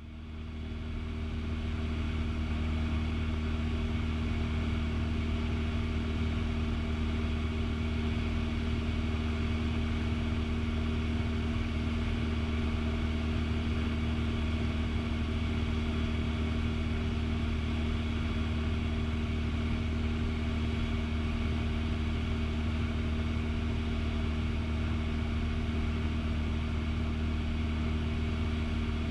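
Steady in-flight drone of a 1976 Cessna 182P Skylane's 270-horsepower P.Ponk-upgraded engine and propeller, heard in the cockpit. It fades in over the first second or two after a brief dropout, then holds even, with no change in power.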